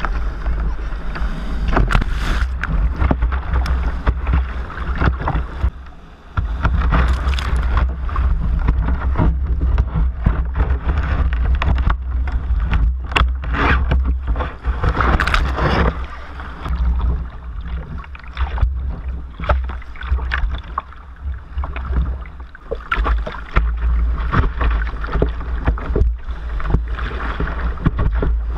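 Sea water splashing and rushing against a sea kayak's bow as it is paddled through breaking surf, heard close up, with many short splashes over a steady low rumble. The sound drops briefly about six seconds in.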